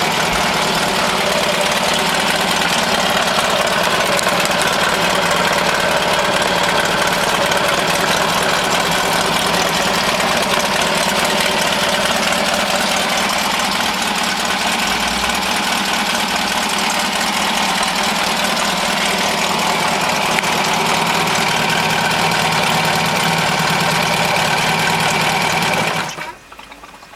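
Honda 7.5 hp four-stroke outboard motor running steadily, then cutting out suddenly near the end when its stop button is pressed.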